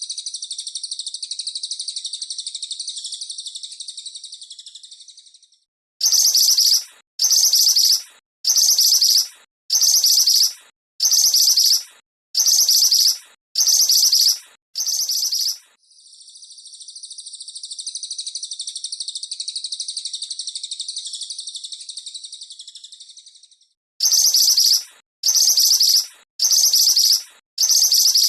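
Recorded songbird calls, cililin and mantenan, looped as a masteran training track. A long, high, continuous trill swells and fades, then comes a run of eight short, harsh chattering calls about one every second. The long trill comes again, and the harsh calls start again near the end.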